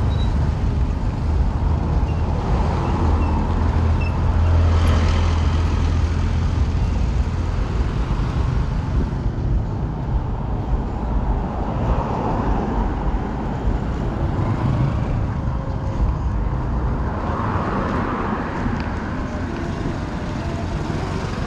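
Busy street traffic: motor vehicles running and passing close by over a steady low rumble, several passes swelling and fading.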